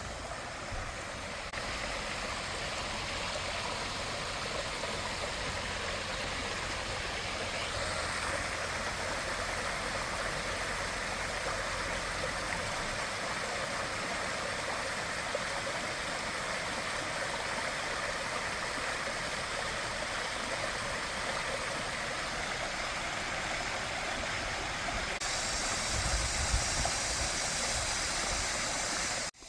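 Small mountain stream running over rocks: a steady rush of flowing water whose tone shifts a little about eight seconds in and again near the end.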